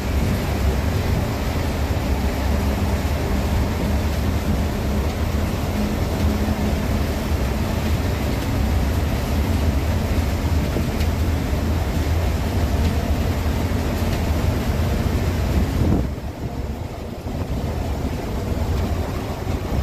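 Steady low engine drone and road noise from inside a moving intercity bus's cabin. It eases off briefly about sixteen seconds in, then picks up again.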